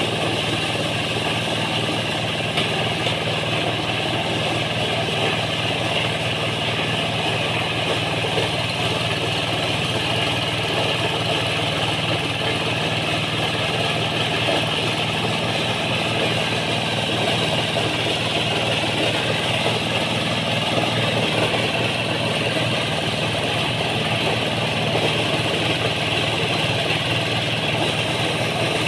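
Kubota-engined corn sheller running steadily while ears of corn are fed in. A constant engine hum sits under the dense rattling rush of the threshing drum shelling the cobs.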